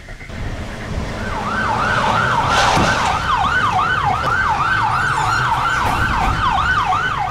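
Police car siren in a fast yelp, its pitch sweeping up and down about two and a half times a second, starting about a second in, over the low rumble of cars pulling up.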